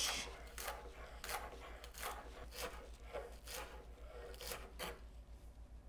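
Chef's knife chopping scallion greens on a cutting board: quick, even knocks of the blade on the board, about three a second, thinning out near the end.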